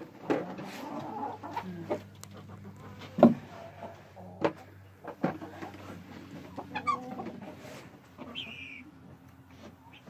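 Hens clucking softly in a coop, broken by several sharp knocks, the loudest about three seconds in, and a brief high-pitched call near the end.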